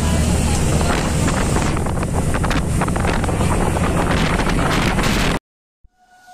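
Wind buffeting the microphone over the low rumble and rush of road noise from inside a moving vehicle on a highway, with gusty irregular buffets; it cuts off suddenly about five seconds in.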